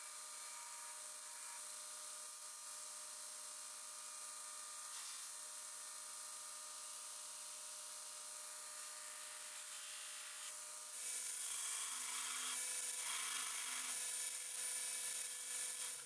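Belt grinder running with a steady hiss. About eleven seconds in it gets louder as a 1095 steel knife blank is pressed against the belt to grind its profile.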